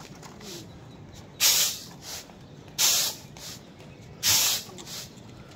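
Three short, loud hissing bursts about a second and a half apart, made as a signal to bring a flock of flying pigeons down to land on the roof.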